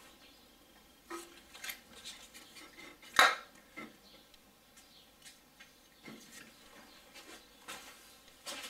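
Scattered light metallic clinks and knocks as hands and an aerosol can are worked among the parts of a car's engine bay, with one sharp, louder knock about three seconds in.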